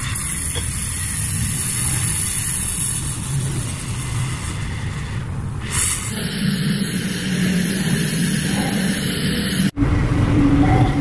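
Gas torch flame hissing steadily while it melts a lead stick onto lead-acid battery plate lugs. The sound cuts off abruptly near the end and gives way to a steady background with a low hum.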